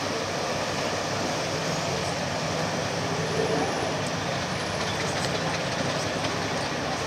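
Mangusta 108 motor yacht's engines running steadily as it backs in stern-first to moor, a low rumble mixed with the churn of its propulsion wash in the water.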